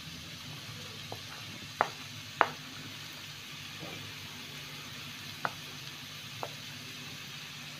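Peas, carrots and spices frying in oil in a pan with a steady low sizzle, while mashed potato is spooned in; five short sharp taps of the spoon, the loudest a couple of seconds in.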